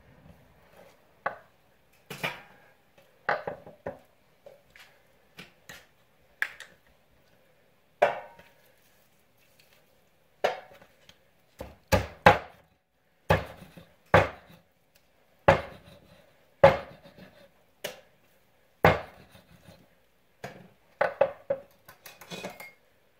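Hatchet chopping raw bone-in chicken on a wooden butcher block: a series of sharp single chops at uneven intervals, about one every second or two, some coming in quick pairs.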